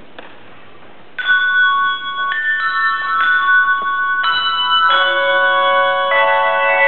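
Handbell choir playing: after about a second of quiet, single handbell notes are struck one after another, each ringing on, then from about five seconds in several bells sound together in fuller, sustained chords.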